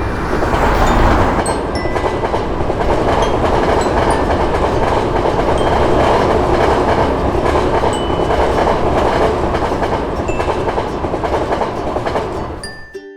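A train passing over a level crossing: a steady, loud rumble of wheels on rails, with scattered short high tones over it. The sound drops away sharply just before the end.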